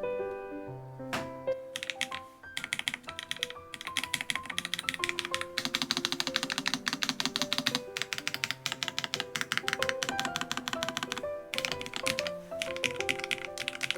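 Typing on a Lofree Flow Lite low-profile mechanical keyboard: rapid key clicks starting a few seconds in, with a short pause near the end, over background music.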